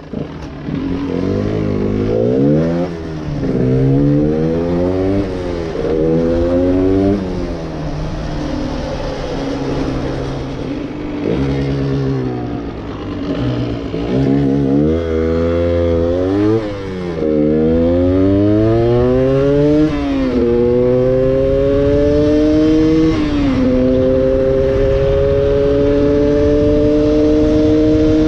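Stock two-stroke single-cylinder engine of a 1994 Yamaha DT125R accelerating through the gears. The pitch climbs and drops back at each upshift, in quick runs over the first half. Later it pulls slowly in a high gear and settles near a steady pitch toward the end.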